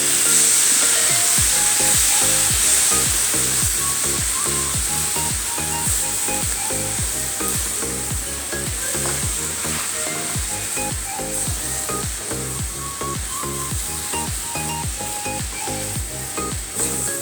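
Sliced vegetables (cabbage, bell pepper, cauliflower, kale) sizzling steadily as they stir-fry in hot oil in a pan, with stirring. Background music with a steady beat plays underneath.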